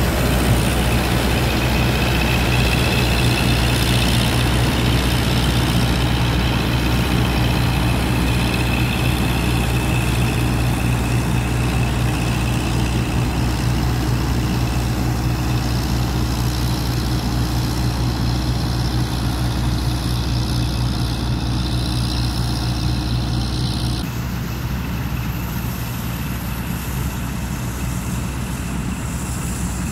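Massey Ferguson 86 combine harvester working in barley: its engine and threshing machinery run with a steady drone and a higher whine, growing slightly quieter as it moves away, with the tone changing abruptly near the end.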